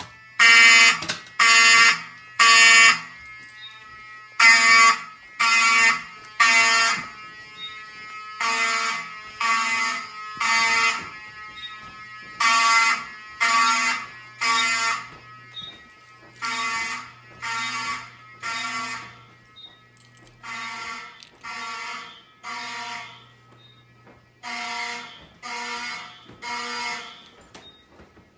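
Fire alarm horns sounding the temporal-3 evacuation pattern: three short blasts about a second apart, then a pause, repeating seven times. The blasts are loudest at first, grow fainter through the middle and louder again near the end.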